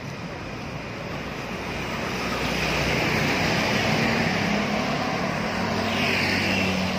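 A motor vehicle passing on the road, its engine hum and road noise swelling over a couple of seconds and staying up before easing off near the end.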